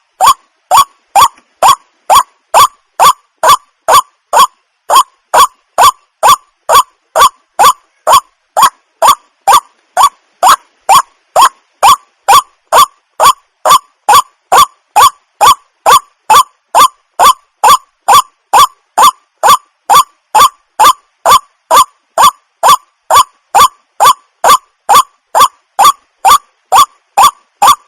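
White-breasted waterhen (the 'wak-wak' bird) calling: a short, loud, falling 'wak' note repeated a little over twice a second at a perfectly even, unbroken pace.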